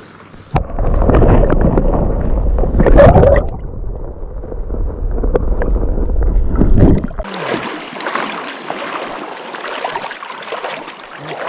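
Water sloshing and gurgling heard with the microphone held underwater: a sudden, heavy, muffled sound from about half a second in, lacking all the high end. About seven seconds in the microphone comes out and the sound turns to the open hiss of flowing river water.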